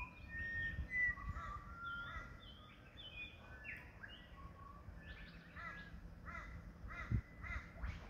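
Several birds calling together: short, clear whistled notes overlapping in the first half, then a run of harsh calls repeated about twice a second in the second half, over a low background rumble.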